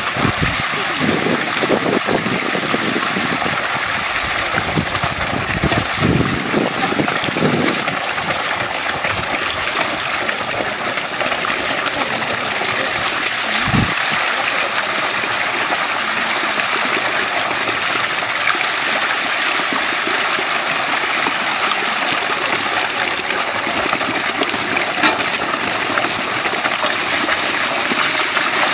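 Water running and splashing steadily as whole chickens are washed, with a few low knocks in the first eight seconds and one about fourteen seconds in.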